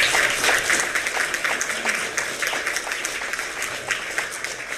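Audience applauding: a dense patter of many hands clapping, loudest at the start and easing off a little toward the end.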